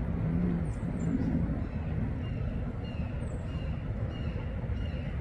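A steady low rumble, with a person's voice in the first second, then short high chirping bird calls repeating from about two seconds in.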